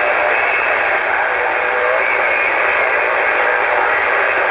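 CB radio receiver hissing with steady static between transmissions, heard through the radio's speaker, with faint wavering tones in the hiss.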